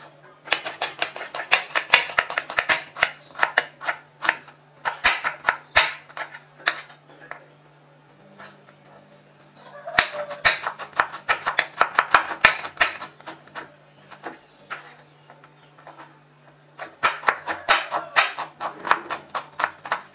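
Kitchen knife slicing and then chopping a red onion on a wooden chopping board: rapid runs of knife strokes against the board in four bursts, with short pauses between. A faint steady low hum runs underneath.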